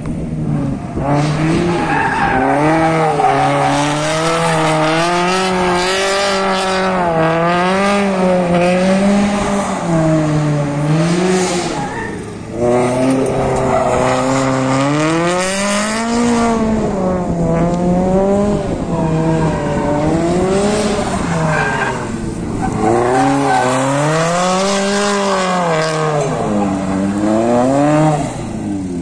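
Toyota 86 drifting, its engine revving up and down and rising and falling every couple of seconds as the throttle is worked, with tyres squealing and skidding on the tarmac.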